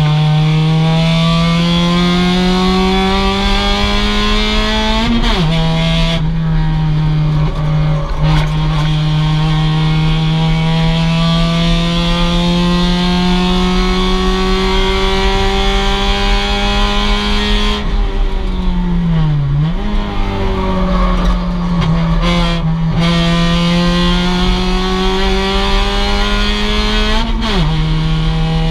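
2006 Mazda MX-5's stock four-cylinder engine at racing pace, revs climbing slowly under full throttle. The revs drop sharply at a gear change about five seconds in, fall and pick up again around nineteen seconds in, and drop again near the end.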